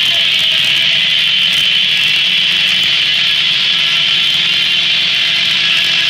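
Steam-driven circular sawmill blade ripping lengthwise through a big red elm log, a steady loud sawing rasp.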